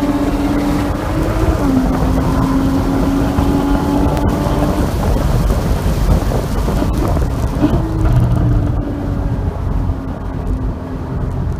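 Porsche Boxster 981 GTS flat-six engine pulling hard down a straight, heard from inside the car as a steady engine note under a heavy low rumble of wind and road noise. The note dips briefly in pitch about two seconds in, and fades after about eight seconds as the car slows for a corner.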